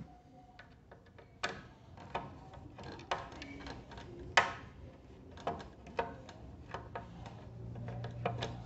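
Phillips screwdriver backing a screw out of a motorcycle windscreen mount, with irregular clicks and taps of the tool against the screw and plastic; the sharpest click comes about four and a half seconds in.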